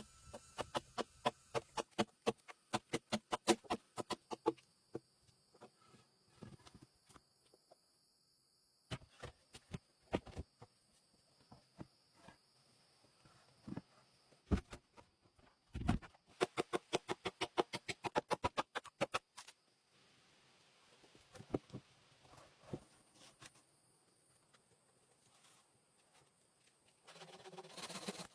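Rapid series of sharp knocks, about five a second, in two runs of several seconds each, with scattered single knocks between and a brief rustle near the end.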